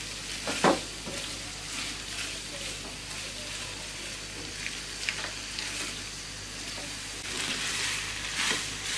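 Macaroni with egg and vegetables sizzling in an oiled nonstick pan as a spatula stirs and turns it. A steady frying hiss runs through, with a few short scrapes or taps of the spatula, the sharpest one under a second in.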